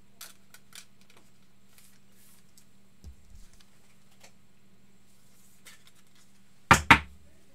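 Trading cards and plastic card holders being handled on a table: scattered small clicks and light sliding rustles, a dull thump about three seconds in, and two sharp knocks close together near the end, the loudest sounds. A faint steady hum runs underneath.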